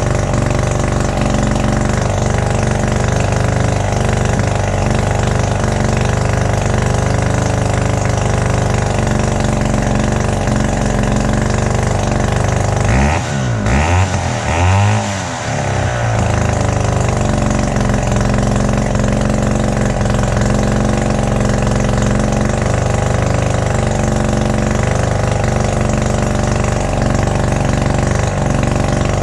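Wright GS2016 gas-powered reciprocating saw's two-stroke engine idling steadily on the bench during tuning. About halfway through, a few quick throttle blips rev it up and let it fall back.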